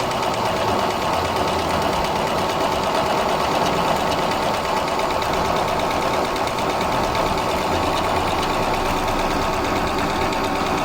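Juki Allowne computerized sewing machine running steadily at speed, stitching a decorative stitch pattern.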